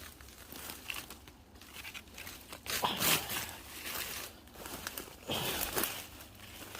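Dry brush, twigs and dead leaves crackling and rustling as a hiker pushes through a dense thicket, in irregular bursts, loudest about three seconds in and again past five seconds.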